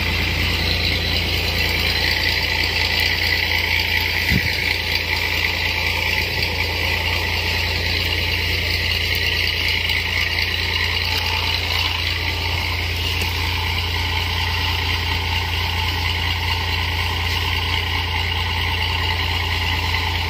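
Engine-driven crop sprayer running steadily to pump pesticide spray through a hose to the lance, with a constant low hum and a steady high hiss.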